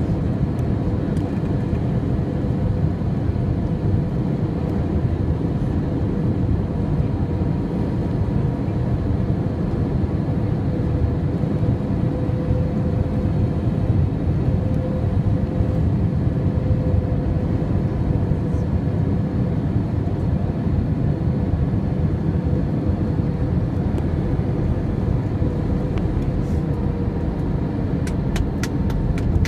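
Airbus A321 cabin noise on final approach: a steady low roar of engines and airflow with a constant hum. Near the end a quickening series of sharp clicks begins as the airliner comes over the runway.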